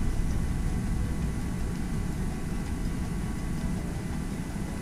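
Steady low rumbling background noise with a faint, even high whine through it; nothing starts or stops.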